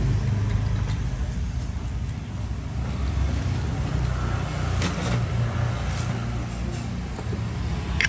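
Steady low rumble of road traffic, with a few faint light clicks about five to six seconds in.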